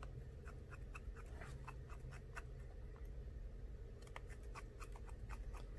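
Faint, irregular small clicks and scrapes, several a second, of a small precision screwdriver fitting the remaining screws into an iPhone XR.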